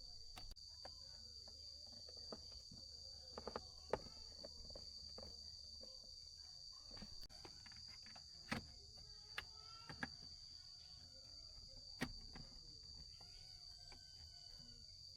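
A steady, high insect drone of crickets, with a handful of sharp clicks and knocks scattered through it, the loudest about four, eight and a half and twelve seconds in. A few short chirps come near the end.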